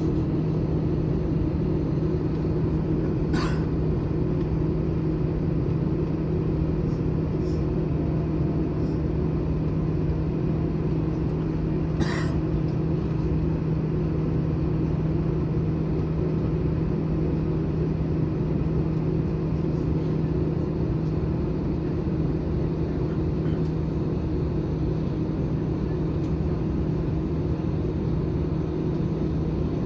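Airbus A321 taxiing at idle thrust, heard inside the cabin: a steady low drone with a constant hum that holds one pitch throughout.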